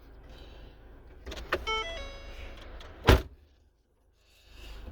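Handling sounds inside a parked car: a few clicks, then a short stepped beeping tone, and one loud thump about three seconds in, over a low rumble.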